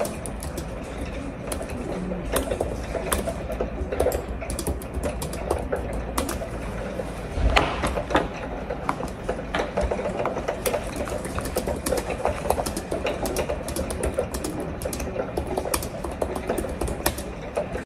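Typing on a laptop keyboard: fast, irregular key clicks throughout over a low steady hum, with one louder thump about seven and a half seconds in.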